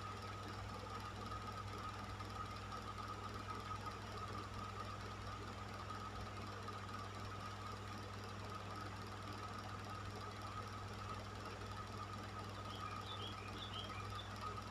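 Electric fan running steadily: a low motor hum with a steady whine above it and an even rush of air.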